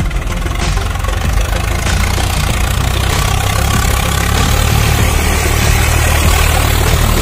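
A steady engine idling sound, a low even hum that grows slightly louder toward the end.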